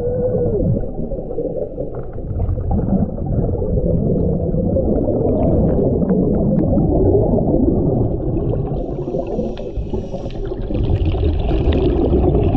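Underwater bubbling and rumble of a scuba diver's exhaled air streaming up past the camera, with a brief wavering tone at the start.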